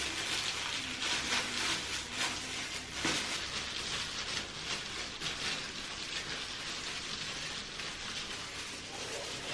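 Disposable plastic gloves crinkling and rustling as they rub hair dye into wet hair: a steady crackly rustle with many small ticks that stops suddenly at the end.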